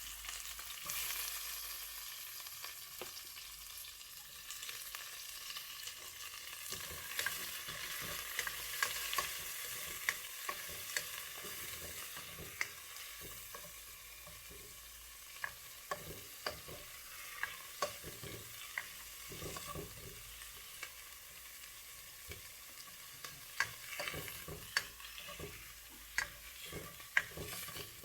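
Garlic sizzling in hot palm oil in a pan, with a steady hiss. A utensil stirring it clicks and taps against the pan again and again.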